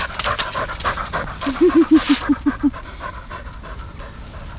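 Cocker spaniel panting fast, about eight breaths a second. About a second and a half in, a run of pants takes on a short whining pitch.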